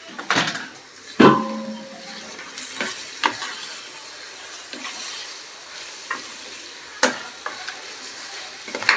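Chicken frying with a sizzle in a pan while a spoon stirs it, scraping and knocking against the metal. One loud clank about a second in rings briefly, and a few lighter knocks follow.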